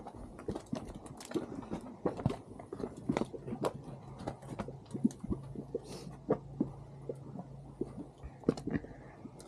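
Mud pot bubbling, with thick irregular plops and gloops several times a second. Footsteps on a wooden boardwalk in the first few seconds.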